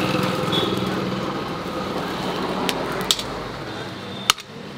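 An electric power tool's motor running steadily, then fading and stopping about four seconds in, with three sharp metal knocks near the end.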